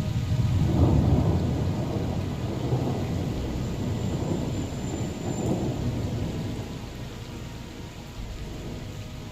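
Rolling thunder from a nearby thunderstorm, a deep rumble with crackle that swells about a second in and again around five seconds, then dies away, over falling rain.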